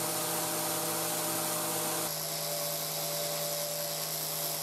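Handheld angle grinder running steadily at speed with no load: a constant motor whine over a bright hiss, shifting slightly about two seconds in.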